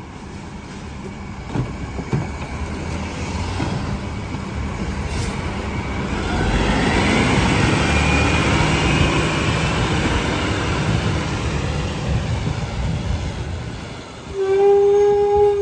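Rear-loader garbage truck with a McNeilus body: a couple of knocks as cans are emptied into the hopper, then the diesel engine revving up, rising in pitch, as the truck pulls ahead. Near the end a loud steady horn-like tone starts.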